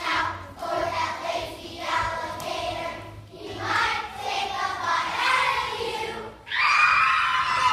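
Children's choir singing together in phrases, ending on a sudden, loud held note near the end.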